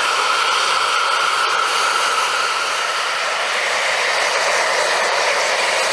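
Shop vac blowing forced air into a homemade charcoal furnace melting aluminium: a steady rushing whoosh with a thin motor whine. The whine moves higher about halfway through.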